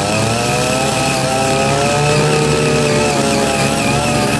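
Ching Yee CY80 mini tiller's small 5 hp engine running under load while its six rotary tines dig into soil. The engine note wavers slowly up and down as the tines bite.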